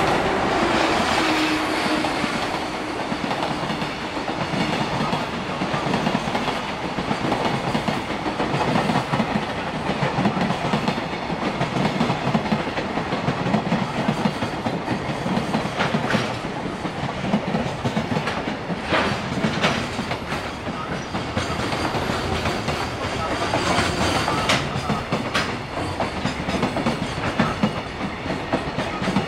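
Freight train's container flatcars rolling past, wheels clattering over rail joints in a steady clickety-clack with occasional sharper clicks. A whine falls away in the first second or two.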